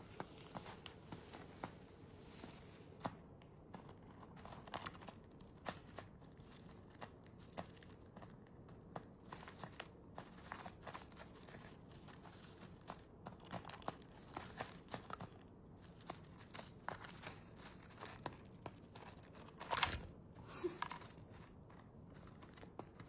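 Small parrots cracking and husking seeds with their beaks: a scattered run of faint, irregular clicks and crackles. One louder knock comes near the end.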